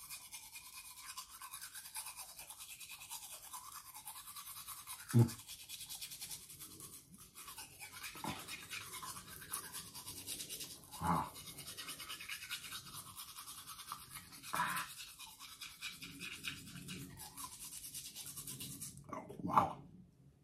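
Toothbrush loaded with salt instead of toothpaste scrubbing teeth, the bristles rasping steadily with a fast back-and-forth rhythm. A few short louder sounds break in, about five seconds in, twice in the middle and again near the end.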